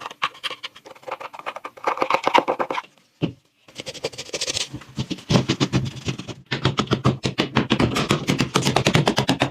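Hand work on a rusty metal workpiece: rough scraping and rubbing strokes, then, after a brief pause with a single knock, a fast run of clicking taps at about five or six a second.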